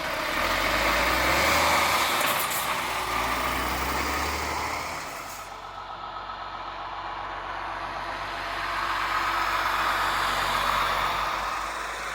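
A diesel truck drives slowly past with a steady low engine rumble, then, after a cut, a MAN eTruck electric truck passes. The eTruck has no engine rumble, only a broad rolling hiss of tyres and drive.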